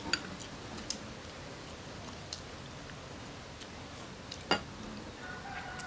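A few light, sharp clicks of chopsticks against ceramic rice bowls and plates during a meal, the clearest about four and a half seconds in, over quiet room tone.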